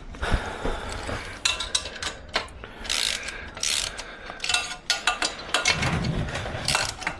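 Socket ratchet clicking in short runs of strokes with pauses between them as the 12 mm exhaust header bolts are tightened down.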